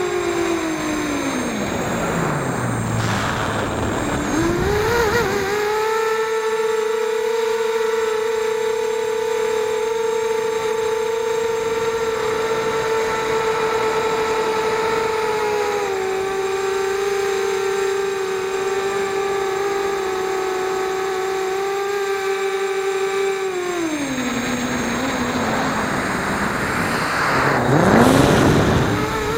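FPV quadcopter's electric motors and propellers whining at a steady pitch, which drops low about two seconds in as the throttle is cut and then climbs sharply back near five seconds in. The pitch steps down slightly midway, falls again near the end, and surges up to its loudest just before the end.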